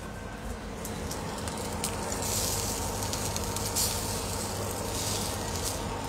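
Food sizzling in a hot frying pan, the hiss swelling in several bursts a couple of seconds apart, over a steady low hum.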